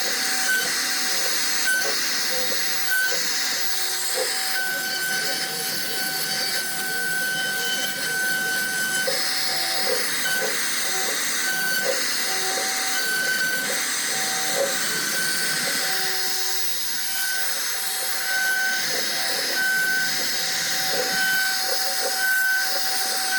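CNC router carving wood: a steady spindle whine over a hiss of cutting, with a higher tone that switches on and off every second or so.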